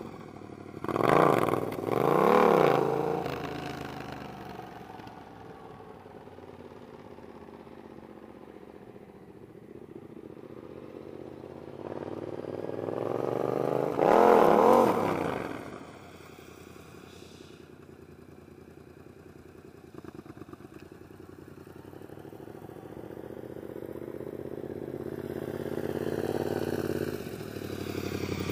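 Yamaha FZ-07's parallel-twin engine through a Toce aftermarket exhaust, revving twice in quick succession near the start. It then runs quieter as the bike moves off, revs up to a loud peak and falls away about halfway through, and grows louder again as the bike comes back close near the end.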